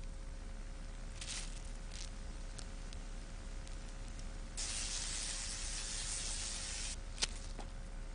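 Electrical hiss of an electrotherapy sponge electrode: a faint steady hiss with a few sharp clicks, swelling into a louder hiss for about two seconds midway, then one more click near the end. It is the sound of current passing as the wet-sponge electrode is pressed to bare skin.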